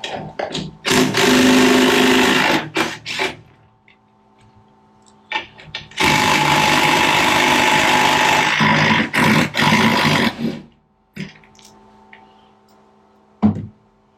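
A power impact wrench runs in two long rattling bursts, with short blips after each, as two bolts are undone on a Dynapac LP650 roller. A steady hum runs underneath.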